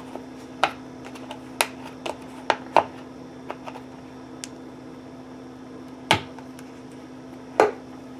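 Plastic screw cap and spout of a cardboard almond-milk carton being twisted and pulled open by hand: a run of sharp plastic clicks and snaps, several in the first three seconds and two louder ones later. A steady low hum runs underneath.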